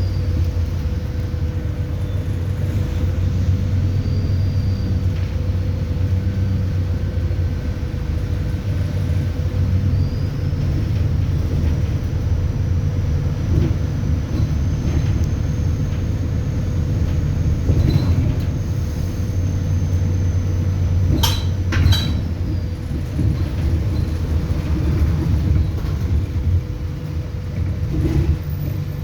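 An ADL Enviro400 Hybrid double-decker bus heard from inside while under way: a steady low rumble with a constant hum over it. A faint high whistle, the turbo whistle named in the title, rises slowly for about ten seconds in the middle. Two sharp knocks come a little past twenty seconds.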